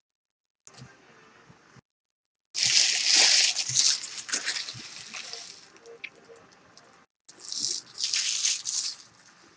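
Foil trading-card pack wrappers crinkling and being crumpled, in two bouts: a loud one starting about two and a half seconds in and a second near the end. The audio drops to dead silence in short gaps between them.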